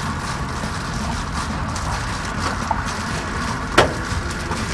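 Reflective foil bubble-wrap insulation crinkling as it is pressed flat by hand against the van's sheet-metal wall, with one sharp snap about four seconds in, over a steady low rumble.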